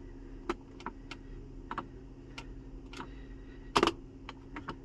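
Irregular clicks and taps of buttons on a handheld OBD2 scan tool being pressed to clear the stored P0345 trouble code, about a dozen, with one louder knock nearly four seconds in, over a low steady hum.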